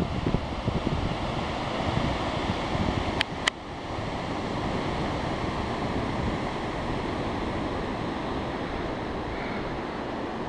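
Surf washing onto a beach, with wind buffeting the microphone. Two sharp clicks come a little over three seconds in, after which the noise settles to a steadier, slightly quieter wash.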